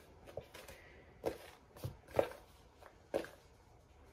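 Quiet handling sounds of a hand rolling pieces of spare rib in flour inside a plastic tub: soft rustling with a few short knocks against the container, spaced about a second apart.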